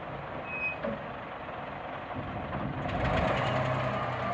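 Engine of a working excavator (shovel machine) running steadily. A short high tone sounds under a second in. About three seconds in it gets louder, with a rattle.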